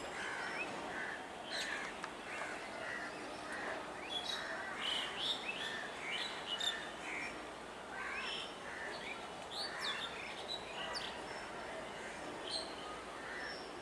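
Birds chirping: many short calls, some sweeping quickly up or down in pitch, over a steady hiss of outdoor background noise.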